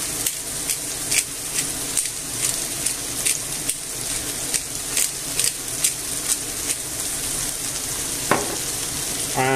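Chicken breasts and sliced mushrooms sizzling in hot olive oil in a frying pan: a steady hiss with frequent crackling pops.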